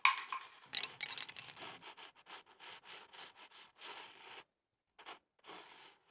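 Quick scratchy strokes of a pencil on paper, several a second, used as a sound effect. They are loudest in the first second and a half and break off briefly about four and a half seconds in.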